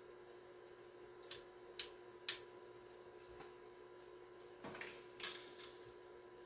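Sharp clicks and light knocks from a small metal electronics box, a microphone test center, being handled and turned over: three separate clicks in the first half, then a short cluster of clicks and knocks near the end, over a faint steady electrical hum.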